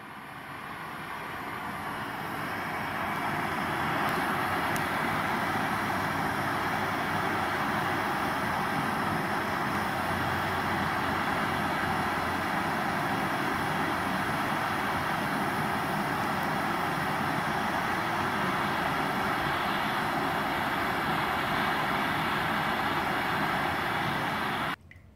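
Two MAPP gas torches blowing into a small crucible furnace, a continuous rushing hiss of the flames. It fades in over the first few seconds and cuts off abruptly near the end.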